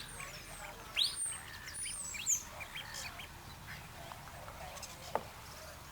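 Birds chirping and calling in quick, overlapping short notes, with two louder high calls about one second and two seconds in.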